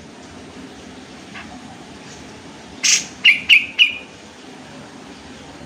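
Sooty-headed bulbul (kapas tembak) calling: a short harsh burst about three seconds in, followed quickly by three sharp chirps.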